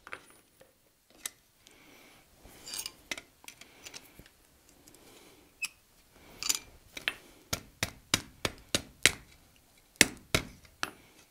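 Hand hammer tapping lightly on a hot ram's head forged from half-inch square bar, lying on the anvil face, to straighten the piece after its horns are bent. The taps are sparse at first, then come in a quicker run in the second half.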